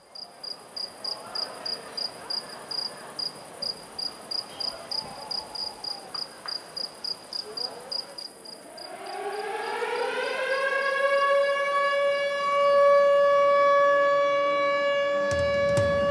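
A cricket chirps steadily, about three to four chirps a second. About eight seconds in, a siren winds up, rising in pitch, then holds a steady loud wail that drowns out the chirping. A few knocks come in under the siren near the end.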